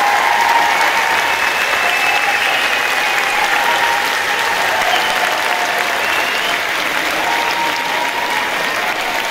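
Sustained applause from a large crowd clapping steadily in a big hall.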